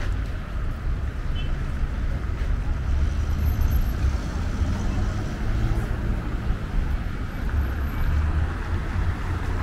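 Steady city street traffic: a continuous low rumble of passing cars with an even hiss of road noise above it.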